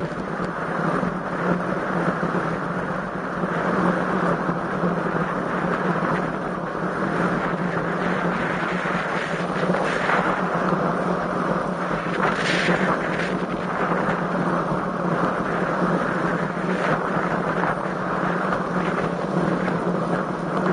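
Strong wind rushing over the microphone of a camera carried on a moving road bike: a steady, loud rushing noise, with a brief brighter hiss about twelve seconds in.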